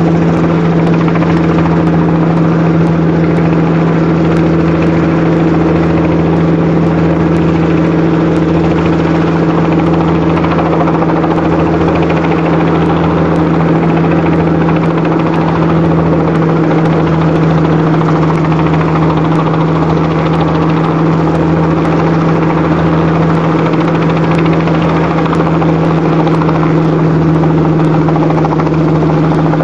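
Robinson R44 helicopter approaching and settling into a low hover to land. The rotor and piston engine make a loud, steady hum with a slow pulsing throb underneath.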